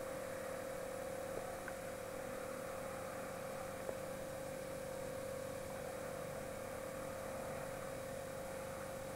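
A steady hum: one held tone over a faint hiss, with a couple of faint clicks.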